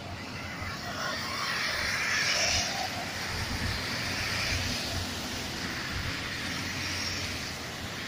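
Cars driving through a flooded street, their tyres hissing and splashing through the standing water over a low engine rumble. The hiss swells a few times as cars pass.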